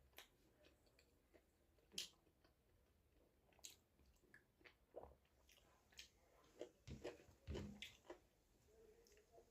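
Faint chewing and mouth sounds of a person eating finger-millet dhido with chicken curry: scattered soft clicks and smacks, a little louder for a moment about seven to eight seconds in.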